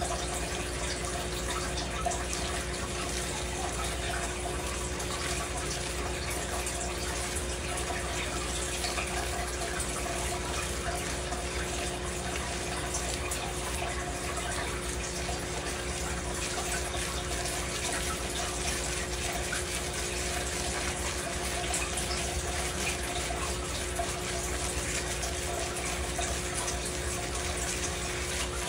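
Tap water running steadily into a stainless steel sink, with a faint steady hum underneath.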